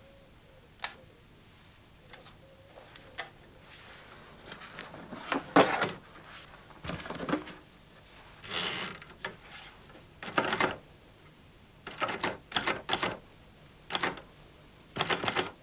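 Manual typewriter clacking. Scattered faint clicks at first, then louder key strikes, several of them in quick runs in the second half.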